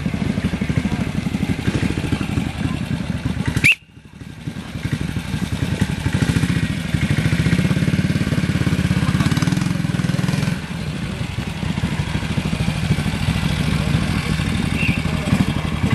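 Classic trials motorcycle engine running at low revs with a fast, even beat, as the bike is ridden slowly through a steep section. About four seconds in the sound cuts off abruptly for a moment, then the engine carries on.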